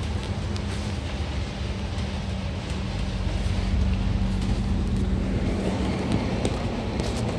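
Double-decker bus running along a city road, heard from its upper deck: a steady low engine drone with a hum, with road rumble. It gets louder about halfway through.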